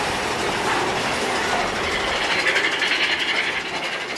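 Big Thunder Mountain Railroad mine-train roller coaster rolling along its track: a steady, loud running noise of steel wheels on the rails. A higher hiss grows louder about halfway through.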